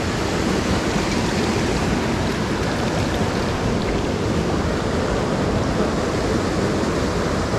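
Creek water rushing over rocks and small cascades, a steady wash.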